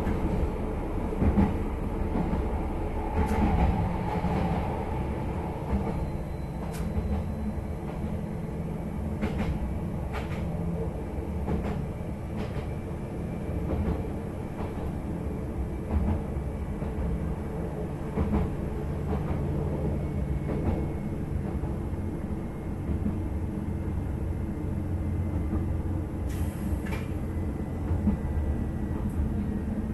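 Interior of a one-carriage diesel railcar running along the line: a steady low engine and running hum, with occasional knocks and clicks from the wheels and track at irregular intervals.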